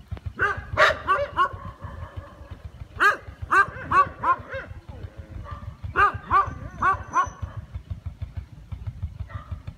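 A dog barking in three quick bursts of about five barks each, a few seconds apart, over a low rumble.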